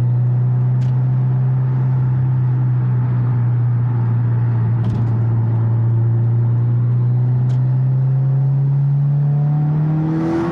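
Turbocharged Subaru flat-four engine driving under load through a catless downpipe exhaust: a steady low drone that rises slowly in pitch over the last couple of seconds as the revs climb.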